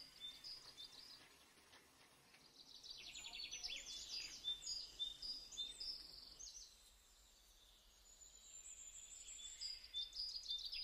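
Small birds chirping in short, high repeated notes and quick trills, coming and going in bouts, fairly faint.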